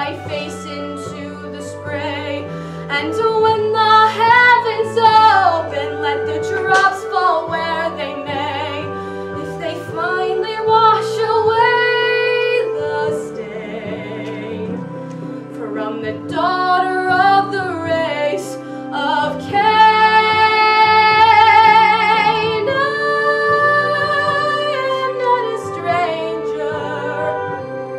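Solo female voice singing a musical-theatre ballad with vibrato over an instrumental accompaniment, swelling to long held notes about twenty seconds in.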